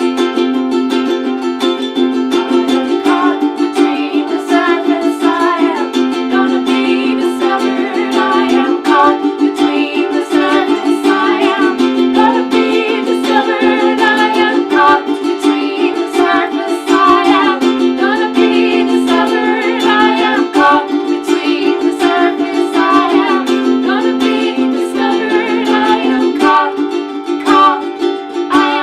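Electric ukuleles playing an instrumental break: steady strummed chords that change every couple of seconds, with a wavering melody line above them from about three seconds in.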